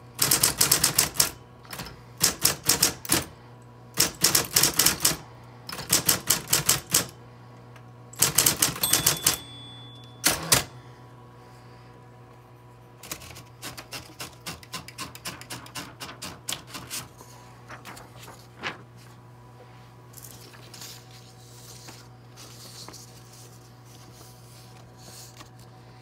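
Smith-Corona Coronet Super 12 electric typewriter being typed on hard: quick runs of loud key strikes over the steady hum of its running motor, a brief ding of the margin bell near the end of the typing, then one loud clack. After that come lighter rapid clicks as the platen knob is turned to wind the paper out, and faint paper rustling.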